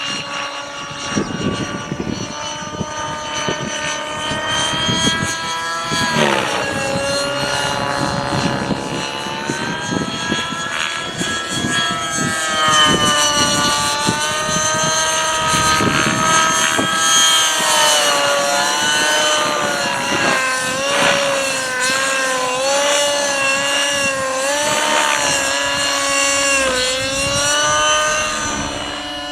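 Align T-Rex 600N nitro RC helicopter's two-stroke glow engine (an O.S. 55 HZ-H) running on 30% nitro fuel in flight. Its pitch drops sharply about six seconds in and climbs back slowly, then sags and recovers repeatedly as the rotor load changes. Wind rumbles on the microphone underneath.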